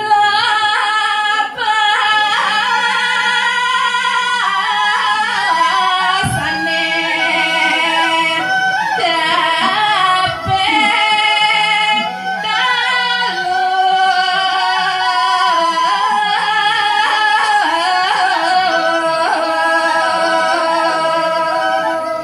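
A woman singing a verse of a Balinese geguritan solo and unaccompanied into a microphone, in a slow line of long held notes with winding ornaments, pausing briefly for breath a few times.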